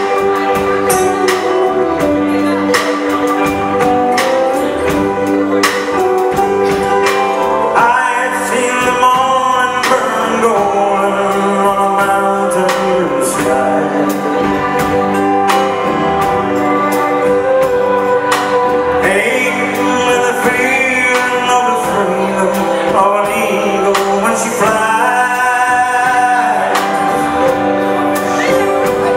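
Live band playing a song: a male singer's sung phrases over keyboard and drums with a steady beat.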